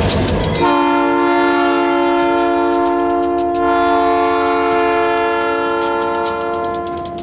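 Diesel locomotive rumble, then about half a second in an EMD GP40-2LW freight locomotive's air horn sounds one long multi-note chord, held steady until just before the end.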